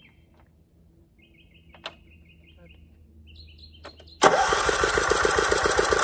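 A John Deere LT155 riding mower's electric starter cranking the engine with a rapid, even beat, starting abruptly about four seconds in. It runs on a jump starter in boost mode because the mower's battery is dead, and the engine, which has sat for a year, turns over without catching. Before that, birds chirp and there is a single click about two seconds in, the jump starter's boost engaging.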